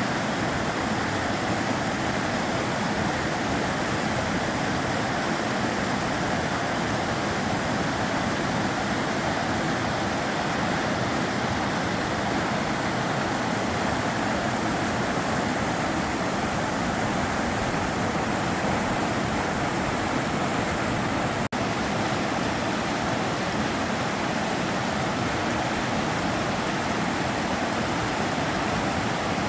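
Sava River water rushing in a steady, unbroken noise, with a split-second dropout about two-thirds of the way through.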